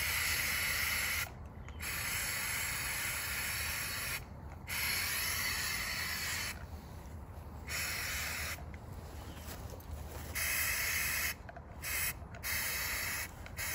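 Aerosol can of Flex Seal black rubber sealant, fitted with a trigger grip, spraying in a string of hissing bursts about one to two seconds long, broken by short pauses.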